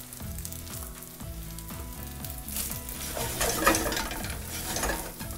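Garlic rice frying in oil in an iron frying pan, sizzling steadily while a wooden spatula stirs and scrapes it around the pan. The scraping strokes get busier and louder about halfway through.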